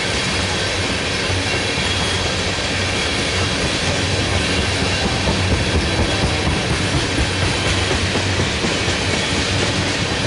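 Freight train of oil tank cars rolling past at speed: a steady, unbroken rumble of wheels on rail.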